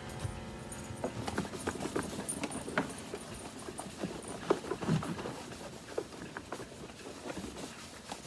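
Irregular light knocks, taps and rubbing from a plastic upright vacuum cleaner being handled and scrubbed clean.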